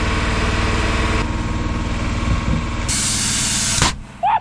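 Engine-driven air compressor running steadily for truck tyre fitting, with a hiss of compressed air lasting about a second near the end.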